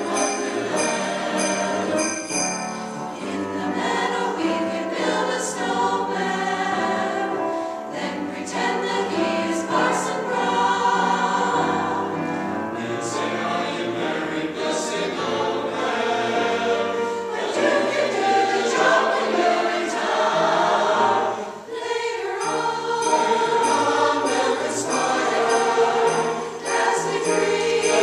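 Community choir singing a Christmas song with accompaniment. Jingle bells are shaken in a steady rhythm near the start and again in the last few seconds, after a brief break in the sound.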